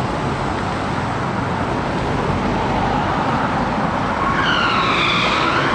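Bus sound effect: steady engine and road noise, with a falling horn-like tone coming in about four seconds in.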